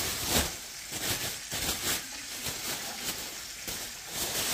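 Plastic bag rustling in repeated swishes, about one to two a second, as a pork chop is shaken in flour inside it to dredge it.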